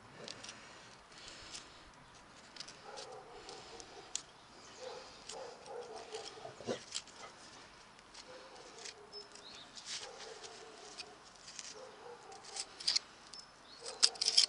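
A hoof pick scraping and clicking against a shod mule hoof, prying out packed mud and pebbles in short irregular strokes, with a few sharper clicks near the end. Between the strokes an animal whines at intervals.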